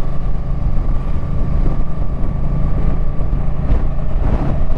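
Suzuki Boulevard M50 motorcycle's V-twin engine running steadily while riding.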